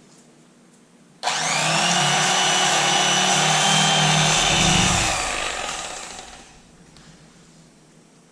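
Electric fillet knife switched on about a second in, its motor running with a steady high whine for about four seconds, then slowing and dying away.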